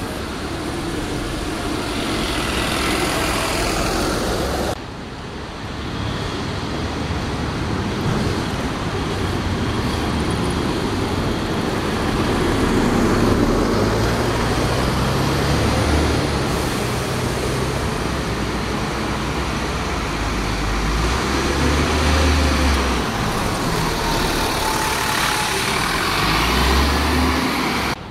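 City buses' engines running as they stand at and pull away from a kerbside stop, over a steady wash of street traffic; the low engine rumble swells and fades as buses move.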